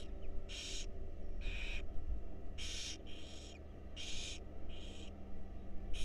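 Barn owl nestlings giving rasping, hissing food-begging calls while being fed, a short hiss repeated about once a second, over a low steady rumble.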